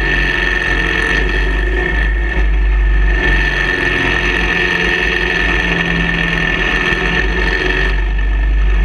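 Cruiser motorcycle riding at speed on a winding road: steady wind rush on the fork-mounted microphone over the engine's running note, the engine note shifting slightly as the rider works the throttle through the bends.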